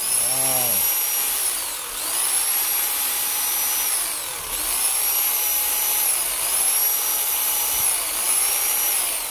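Wadfow 1,050 W SDS Plus rotary hammer drill running with no load in the hand, its motor whining up to speed and slowing again about four times, dropping away near the end; a quick, high-revving whine.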